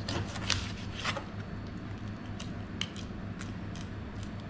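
Kitchen knife cutting and scraping through a raw mackerel on a plastic cutting board: a run of short sharp clicks and scrapes, busiest and loudest in the first second or so, then sparser.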